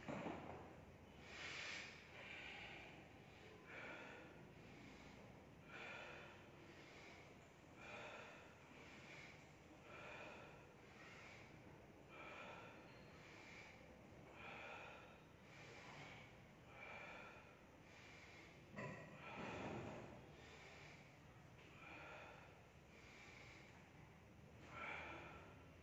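A man's forceful, faint breaths, roughly one a second, in time with repeated dumbbell presses; one longer, louder breath comes about two-thirds of the way through.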